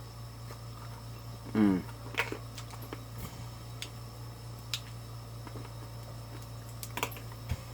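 Sparse crisp clicks and crunches from chewing crispy fried chicken close to the microphone. About one and a half seconds in there is a short, falling voiced 'mm'. A steady low hum runs underneath.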